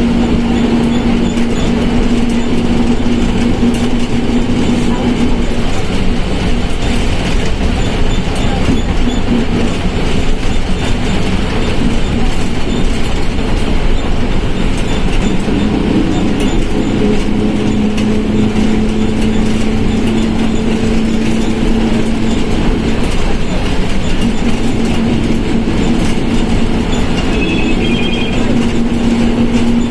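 Volkswagen Volksbus 17.230 OD bus under way: steady engine and road noise with a droning whine from the transmission. The whine drops out about six seconds in and comes back from about sixteen seconds in at a slightly lower pitch.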